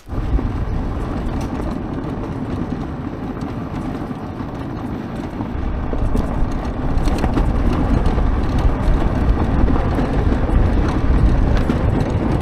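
Homemade electric ATV, a Honda quad converted to hub motors, rolling downhill on a gravel track under regenerative braking. It makes a steady rumble of tyres and wind with no engine note, louder from about halfway in.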